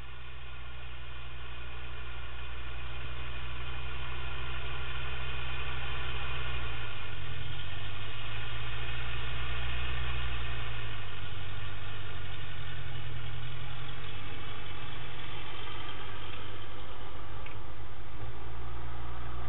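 Ferguson TEA 20 tractor's four-cylinder petrol engine running steadily. It grows louder over the first several seconds, and its speed shifts a little about 7 and 11 seconds in.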